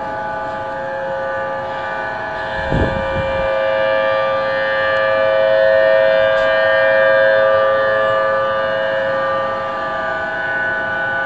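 Civil defense warning sirens sounding a tsunami warning, holding a steady chord of several pitches that swells somewhat louder toward the middle. A brief low thump about three seconds in.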